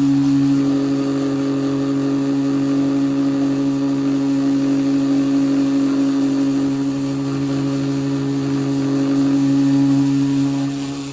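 Power sander running steadily against the car's body panel, a constant hum that dips briefly near the end.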